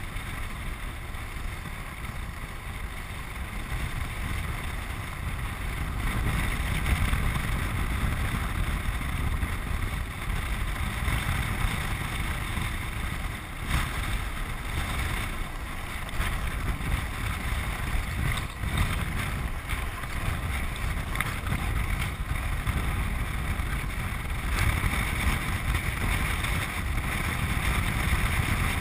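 Land yacht sailing across a dry lake bed: wind buffeting the camera microphone over a steady rumble and hiss of travel, a little louder from about six seconds in, with a couple of brief knocks near the middle.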